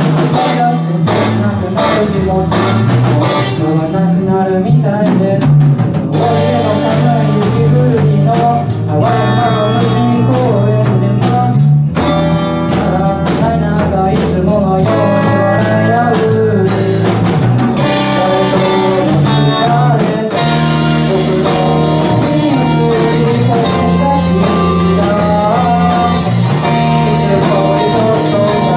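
A live rock band playing loud and steady: electric guitars and a drum kit, with a singing voice over them.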